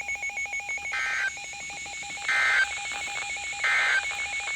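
Three short bursts of NOAA Weather Radio SAME digital data tones, about a second and a half apart: the end-of-message code that closes the flash flood warning broadcast. A rapid, evenly repeating electronic beeping runs beneath them.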